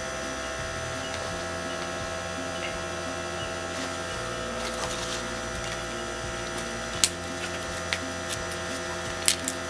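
Battery-powered fan of a Stickman wood-gas camp stove humming steadily while the stove burns, just fired up properly. A few sharp clicks come over it, the clearest about seven seconds in.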